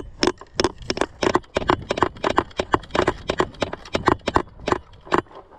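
Quick running footsteps on a dry dirt and pine-needle trail, a fast, uneven run of thuds with gear jostling along with them, stopping about five seconds in.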